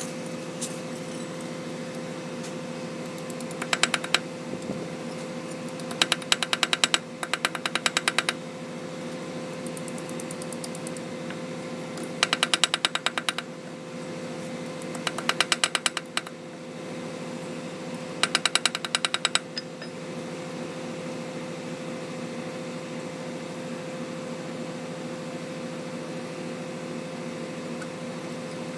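A steady mechanical hum with a clear tone, broken by repeated bursts of rapid clicking, each lasting about a second.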